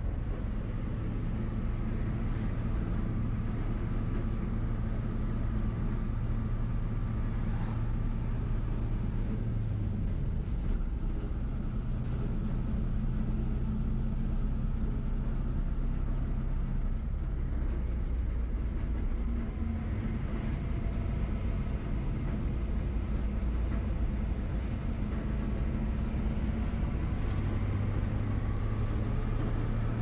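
Car engine and road noise while driving: a steady low drone whose engine note shifts in pitch a few times, about a third of the way in, around halfway, and near the end.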